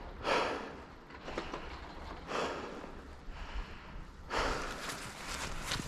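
Skis hissing and scraping over snow in a series of turns, a swish every second or two, the last one longer.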